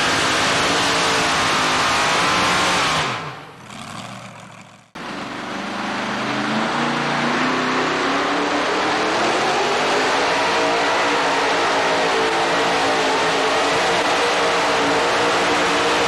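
Racing engines of two-wheel-drive pulling trucks running at full throttle while pulling a sled. The sound fades out about three seconds in, and another truck's engine cuts in sharply about two seconds later. Its pitch then climbs slowly and it runs on loudly.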